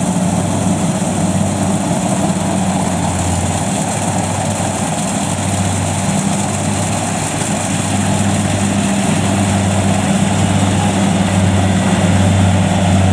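Kubota DC70 Plus rice combine harvester running steadily under load while cutting and threshing, its diesel engine giving a constant low hum over the clatter of the machinery. It grows a little louder in the second half as it draws nearer.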